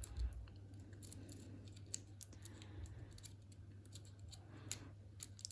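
Faint, irregular little metallic clicks and scrapes of a lock pick probing the pins of a six-pin lock held under a tension wrench, during single-pin picking.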